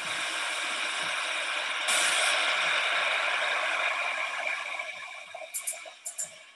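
Steady machine-room hiss on the soundtrack of a walk-through video of an indoor LED grow room, heard through a video call's shared screen. It brightens about two seconds in and fades near the end.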